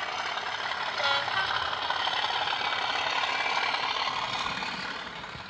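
Diesel locomotive engine running, fading in and out, with a brief higher tone about a second in.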